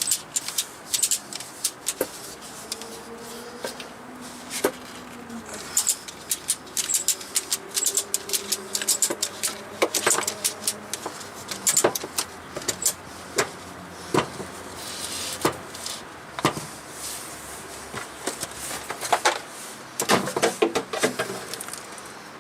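Irregular sharp metallic clicks and clanks, several a second at their busiest, from hand tools and metal parts being handled, with a few faint drawn-out tones under them in the first half.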